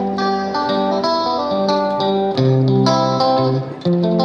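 Background music: a melody of plucked-string notes at a steady level.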